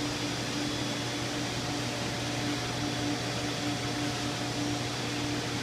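Steady machine hum with an even hiss and a faint low tone that wavers on and off.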